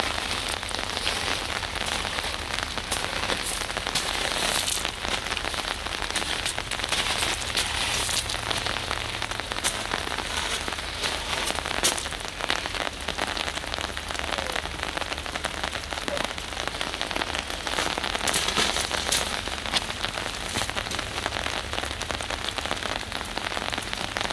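Steady rain, with many separate drop ticks close by over a constant hiss.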